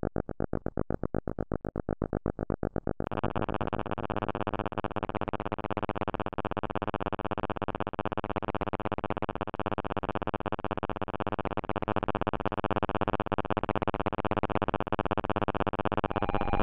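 Electronic soundtrack made on the bent.fm synthesizer app: a buzzy tone pulsing rapidly and evenly, which about three seconds in gives way to a denser, brighter, distorted buzzing drone.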